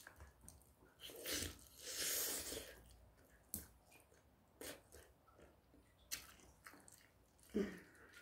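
Faint close-up mouth sounds of eating braised half-dried pollack: soft chewing and biting, with a few small sharp clicks scattered through.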